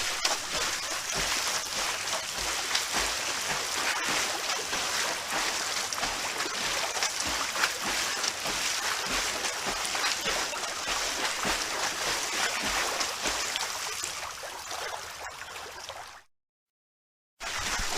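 Swimming-pool water splashing and churning as swimmers move through it, a dense steady wash of small splashes. It cuts off to dead silence about 16 seconds in and starts again a second later.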